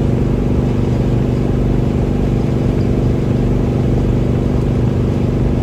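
Cabin noise inside a Jeep on the move: a steady engine drone with road and wind noise.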